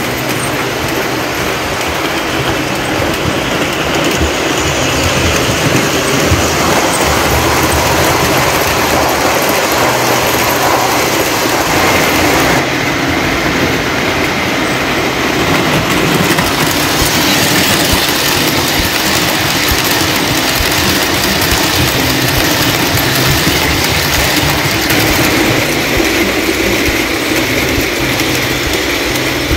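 A Williams O-gauge GG1 locomotive and its passenger cars running on three-rail tubular steel track laid on plywood. The wheels make a steady rolling rail noise.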